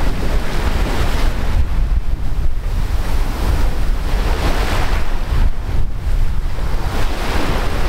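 Strong wind buffeting the microphone over the rush of sea waves, a steady noisy rumble with no pauses.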